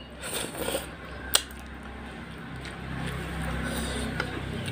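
Close-up eating sounds: chewing and wet mouth smacks from a mouthful of fish head curry and rice eaten by hand, with a sharp click about a second and a half in. A low steady hum comes up in the second half.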